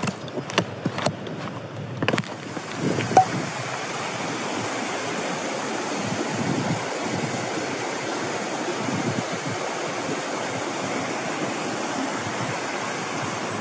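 Trekking pole tips and footsteps clicking and knocking on stone steps, then from about two seconds in a fast-flowing stream rushing steadily over rocks.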